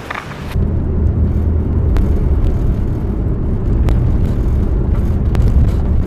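Steady low rumble of a Mazda Scrum kei van driving, heard from inside the cab, with a few faint ticks. It starts about half a second in, cutting in after a brief hiss of outdoor noise.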